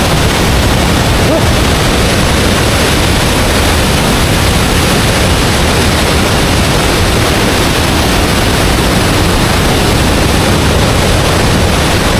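Loud, steady rush of water from a nearby waterfall, an even roar without breaks.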